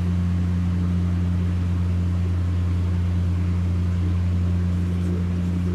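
A steady low electrical hum with a buzzy tone, unchanging throughout.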